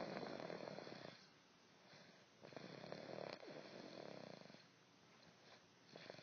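Slow, rhythmic snore-like breathing: each rough, rattling breath lasts a second or two and fades before the next.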